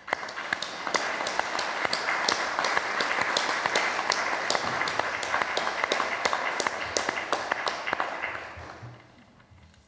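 A group of about thirty council members applauding in a large hall, a dense patter of hand claps that dies away about eight or nine seconds in.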